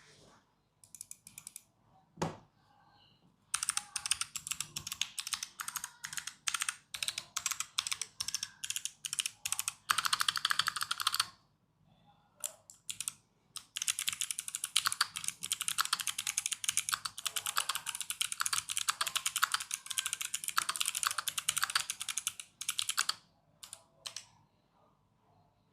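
Typing on a mechanical keyboard with Kailh BOX Crystal Jade clicky switches, each keystroke a sharp click. There are two long runs of fast typing with a short pause between them, and a few scattered keystrokes near the start and end.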